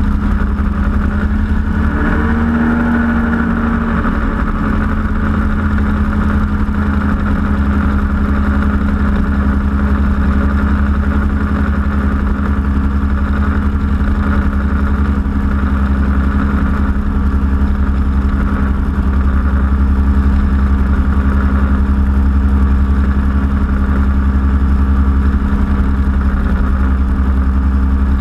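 Powered parachute's engine and propeller running steadily in level flight, heard close up from the cart, with a brief waver in pitch about two seconds in.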